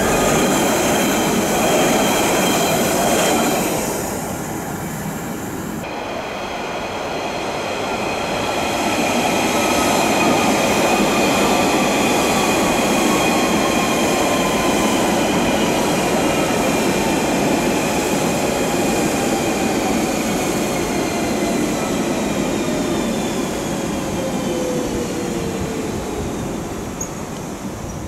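London Underground 1992 tube stock trains. For the first few seconds a train runs past close by with a loud rush of wheels and motors. After a brief quieter gap, an electric motor whine sets in, several tones falling steadily in pitch together over about twenty seconds.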